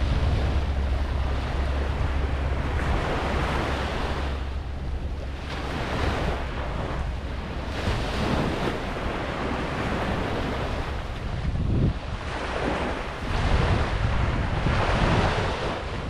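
Ocean surf washing onto a beach, swelling and easing every few seconds, with wind rumbling on the microphone.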